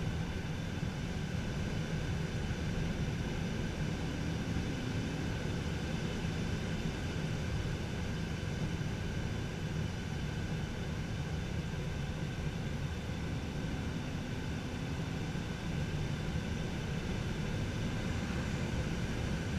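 Steady rush of airflow inside a glider cockpit on aerotow, mixed with the even drone of the tow plane's engine ahead; the sound holds constant throughout.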